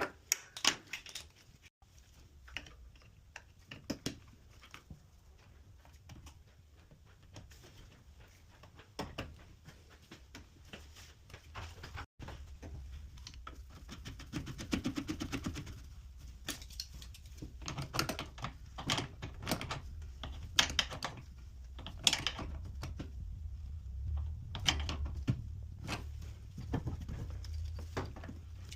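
Irregular clicks and knocks of hard objects being handled. A low hum joins in about twelve seconds in.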